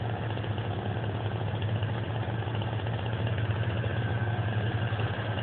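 An engine running steadily at a constant speed, a low even hum with no changes in pitch.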